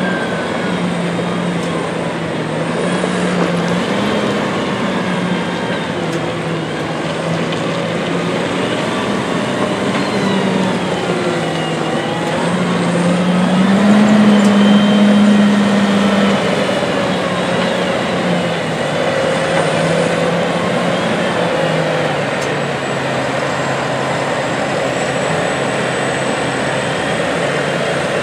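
McCormick X8.760 tractor's diesel engine pulling a loaded Penta silage trailer, the engine note stepping up and down in pitch. It grows loudest about halfway through as the tractor passes closest.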